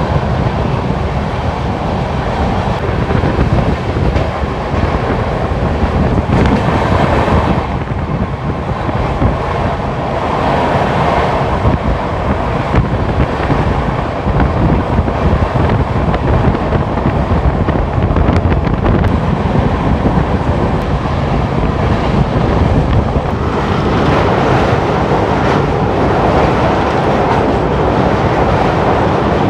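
Express passenger train running at speed, a steady rush of wheel and rail noise with wind on the microphone held outside the coach.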